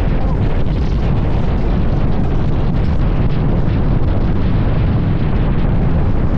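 Lightning Rod's wooden roller coaster train running at speed through its course: a loud, steady rumble of the wheels on the wooden track mixed with heavy wind buffeting on the microphone.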